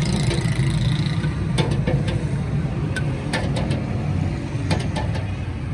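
Steady low engine rumble of street traffic, with a few light clicks of a metal ladle against the steel rabri pot and clay matka.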